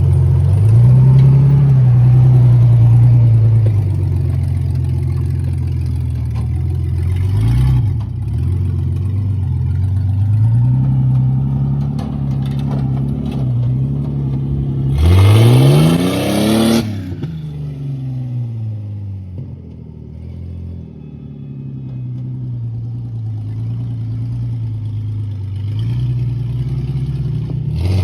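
Jeep Cherokee XJ engine being driven, its pitch rising and falling as it speeds up and eases off. About halfway through it revs hard in one sharp surge with a loud rush of noise, then drops back.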